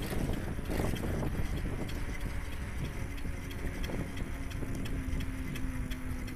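Rumbling, rattling noise of travelling along a forest trail, full of irregular clicks, with a steady low hum joining about halfway through.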